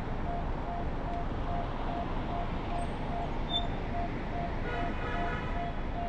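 Steady road and traffic noise of a car driving through city streets, with a short beep repeating about two and a half times a second throughout. A brief higher-pitched sound with several tones comes about five seconds in.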